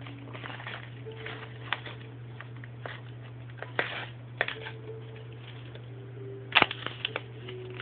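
Scattered light taps and clicks of small objects being handled on a hard surface, with a quick cluster of louder clicks about six and a half seconds in, over a steady low hum.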